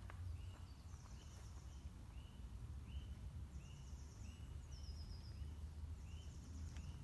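Woodland birdsong: one bird repeats a short, clear note steadily, a little more than once a second, while another bird's brief high trills come in now and then. A low steady rumble runs underneath on the microphone.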